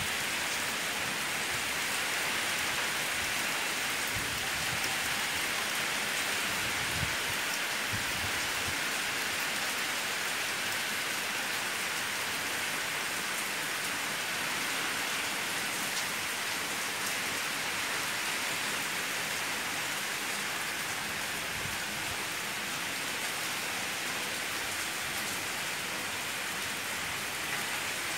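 Heavy hurricane rain falling in a steady, even hiss.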